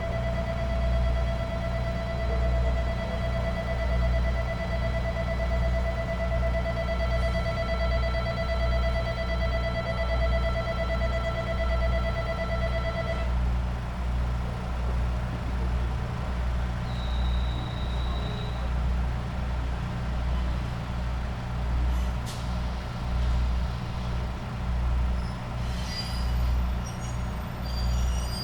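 Diesel railcar engine idling with a steady low throb, while an electric bell rings continuously and stops abruptly about thirteen seconds in. A few clicks and a brief hiss of air follow near the end.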